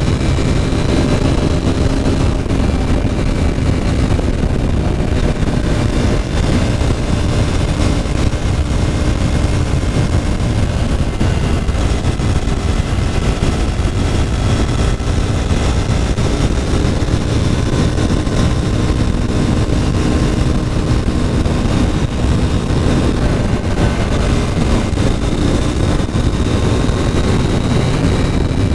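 KTM RC 390's single-cylinder engine running at a steady cruising speed, its note holding level without revs rising or falling, under a heavy rush of wind on the microphone.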